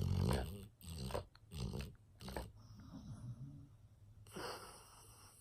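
Sleeping English Mastiff snoring and snorting: four rough snorts in quick succession over the first two and a half seconds, a softer breath, then another snort about four and a half seconds in.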